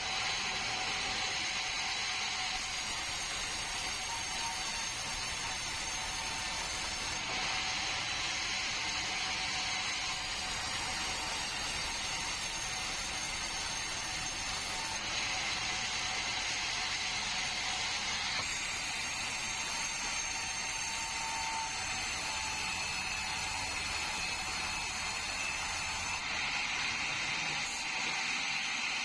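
Sawmill saw running steadily as it cuts through a bengkirai log. It makes a continuous high, hissing mechanical noise that brightens for a few seconds every 7 to 8 seconds.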